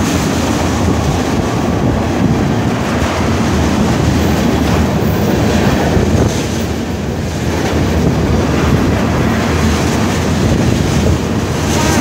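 Freight train of tank cars rolling past at close range: a steady, noisy rumble of steel wheels on the rails.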